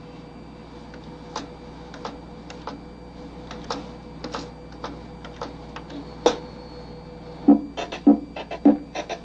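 Scattered clicks of typing on a computer keyboard. About seven and a half seconds in, a simple computer-played tune starts: a child's own song with a drum accompaniment, its notes a little over half a second apart.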